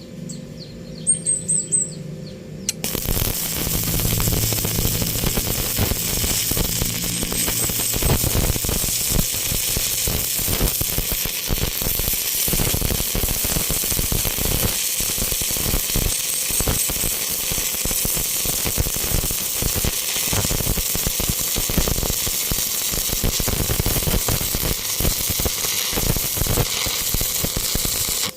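Electric arc welding: a few brief bursts, then from about three seconds in a steady, dense crackle and sizzle of the welding arc.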